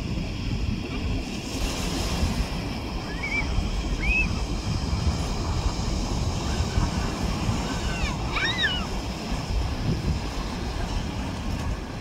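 Small waves washing against shoreline rocks, with wind gusting on the microphone. A few short, high chirps come about three and four seconds in and again in a quick cluster about two-thirds through.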